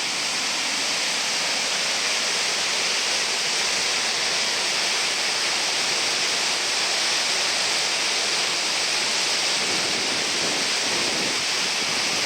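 Steady rushing of a waterfall, the Siffleur River's Second Falls, pouring below.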